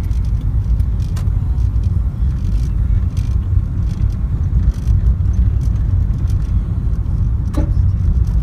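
Steady low rumble of a car's engine and tyres on the road, heard from inside the moving car's cabin, with a brief rising squeak near the end.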